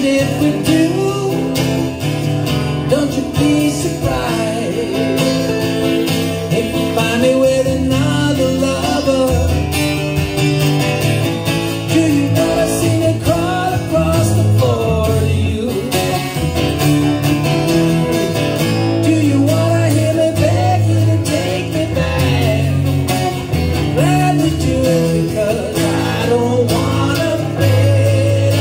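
Acoustic guitar strumming with electric guitar lead lines, played live as a duo.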